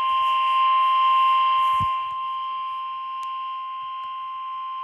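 NOAA Weather Radio's 1050 Hz warning alarm tone: a single steady tone held without a break, sent out during the weekly test of the tone alert system and played by a weather radio receiver.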